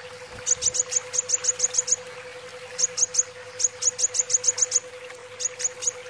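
Sunbird (kolibri wulung) singing rapid runs of short, high, downward-flicking chirps in four bursts: a long run about half a second in, a short one near the middle, another long run, and a short one near the end. A steady low hum runs underneath.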